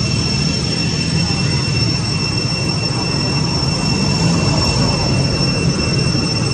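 Cicadas droning in the trees: a steady, unbroken high-pitched whine on a few fixed pitches, over a dense low rumble.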